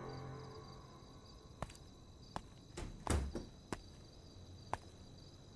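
Faint night ambience of crickets chirping steadily, with a handful of soft taps and knocks scattered through it, the loudest a dull knock about three seconds in. A fading tail of background music ends within the first second.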